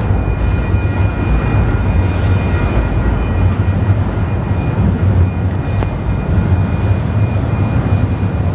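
Union Pacific freight cars rolling past on the rails, a steady loud low rumble of steel wheels with a thin, steady high tone running over it.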